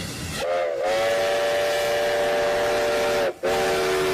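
Steam locomotive whistle blowing a chord of several notes, opening with a rush of steam. It gives one long blast, a brief break about three seconds in, then a second blast.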